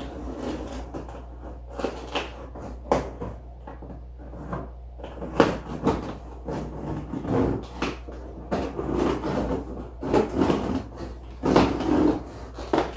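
Large cardboard TV shipping box being opened by hand: flaps scraping, rustling and knocking in irregular bursts, a few louder scrapes and thuds among them.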